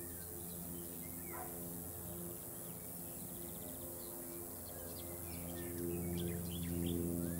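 Small birds chirping and twittering, with more calls in the second half, over a low steady hum that swells a little near the end.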